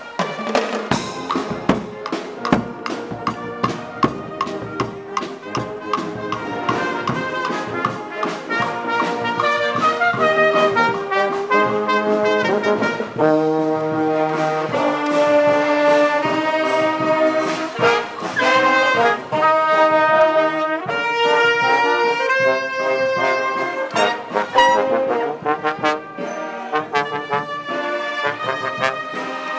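Brass music: trumpets and trombones playing a tune over drums, with held notes stepping from pitch to pitch and steady percussive hits.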